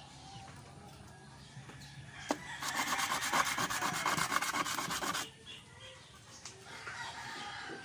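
Fast, even, rhythmic scraping for about two and a half seconds, starting a little past two seconds in, after a single light click. Quieter rubbing and handling noise comes before and after it.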